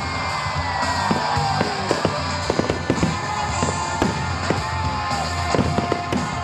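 Aerial fireworks bursting with clusters of sharp crackling pops, over music playing along with the display.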